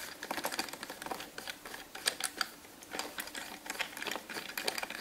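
A run of irregular light clicks and scratches from hands working the AEM X-series gauge free of its cardboard box, undoing the small screws that hold it in the packaging.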